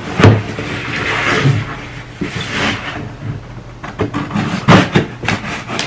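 Scissors cutting open a cardboard shipping box, with scraping along the box and several sharp knocks and clicks as the box and blades are handled, a cluster of them about four to five seconds in.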